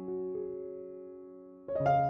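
Soft background piano music: a chord held and fading away, then new notes struck about three-quarters of the way through.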